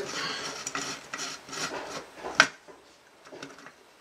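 Small hand screwdriver turning a screw into a circuit board, with short, rough scraping strokes, one sharp click about two and a half seconds in, then faint small ticks.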